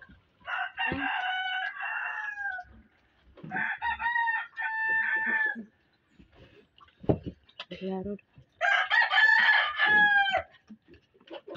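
Rooster crowing three times, each crow about two seconds long, the last one falling in pitch at its end.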